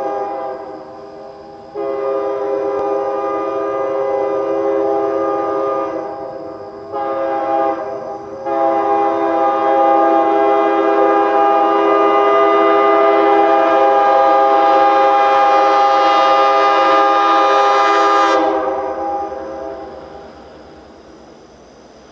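Train air horn blowing the grade-crossing signal: the tail of one long blast, then a long blast, a short one, and a final long blast held about ten seconds before fading out.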